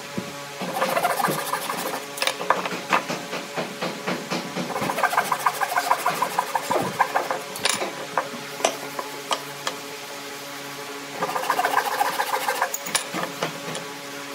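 Hand saw cutting into a pine board in three spells of quick rasping strokes. Between the spells come a few sharp knocks of wood on the tabletop, over a faint steady hum.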